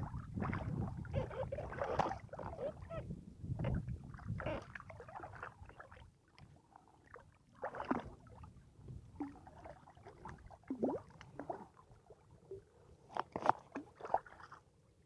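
Shallow seawater sloshing and splashing close to the microphone, in irregular surges, as a wading angler brings in a hooked fish.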